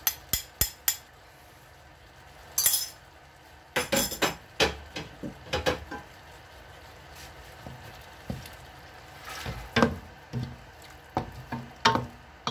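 Scattered clinks and knocks of kitchen utensils: a spoon tapping and scraping a glass bowl over a stainless steel pot, with a quick run of clinks in the first second, then a wooden spoon knocking against the pot while stirring, in a cluster near the end.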